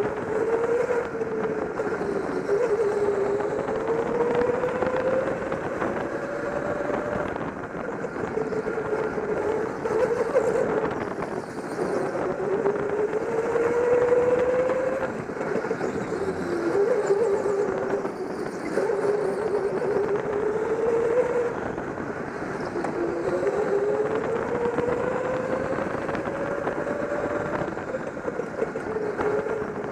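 Go-kart motor heard from the driver's seat, its pitch climbing slowly and then dropping suddenly, about four times, over steady road and motor noise.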